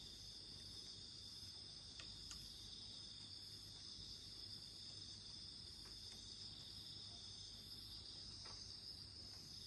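A steady high chorus of night insects, with a few faint crackles and pops from a wood campfire scattered through.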